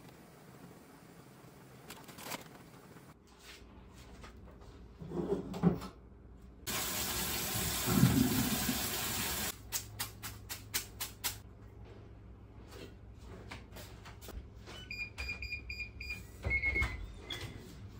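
Water from a pull-out spray kitchen faucet running hard onto noodles in a sink strainer for about three seconds, rinsing them in cold water. A quick run of clicks follows, and near the end there are a few short electronic beeps.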